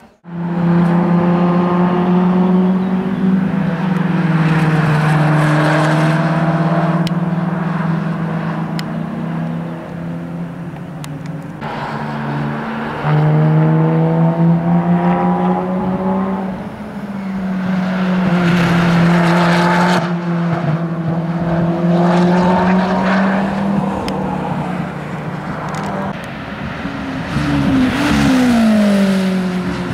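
Ferrari 458 Challenge race cars' 4.5-litre flat-plane V8 running at high revs on track, in several passes with the engine note rising and falling through gear changes. Near the end the pitch falls sharply as the revs drop.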